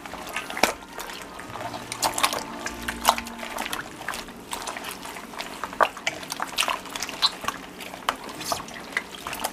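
Wet, irregular squishing and clicking of meat being mixed in a liquid marinade.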